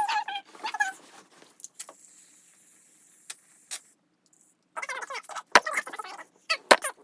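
Sped-up sound of slime ingredients being handled and added to a bowl: quick clicks and squeaky, high-pitched chirps, with about two seconds of steady hiss in the middle.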